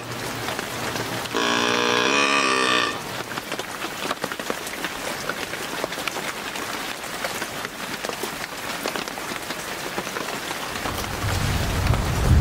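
A doe-bleat can call sounded once, a drawn-out bleat about a second and a half long that drops in pitch at the end. Steady rain patters on the branches throughout, and a low rumble builds near the end.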